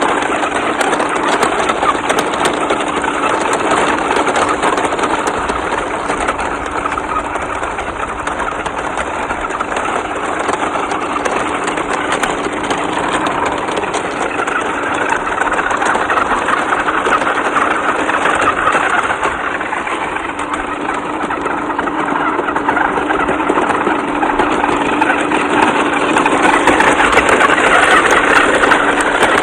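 Huina 1318 radio-controlled toy truck running: a steady mechanical whirr with a constant hum, growing louder near the end.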